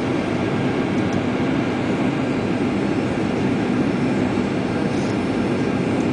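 Steady cabin noise of a WestJet Boeing 737 jet airliner descending on approach: the engines and the airflow over the fuselage make an even low roar, heard from inside the passenger cabin.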